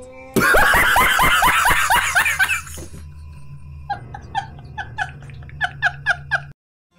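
A man's hysterical laughter: a loud burst of rapid 'ha' notes falling in pitch, about five a second, then quieter high, squeaky wheezing laughs, about four a second, cut off suddenly near the end.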